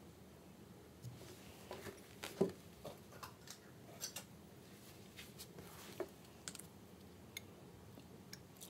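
Faint scattered clicks and taps of hands handling small things close by, the loudest about two and a half seconds in.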